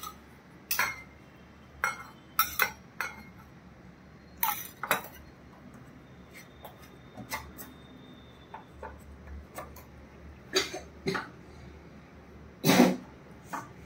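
Metal spoon clinking and scraping against a stainless steel bowl while stirring crushed Oreo cookies with milk powder and milk, in irregular clinks with a louder clunk near the end.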